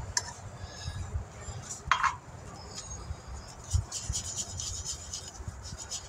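Quiet handling sounds of rubber cement being applied inside a tire: faint scratching with light clinks and ticks, and one brief louder sound about two seconds in.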